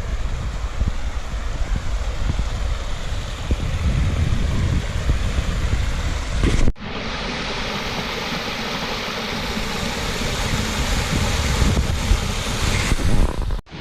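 Waterfall and spring-fed creek cascades rushing steadily, with wind buffeting the microphone as a low rumble. About halfway through the sound breaks off abruptly and resumes as a brighter, hissier rush with less rumble.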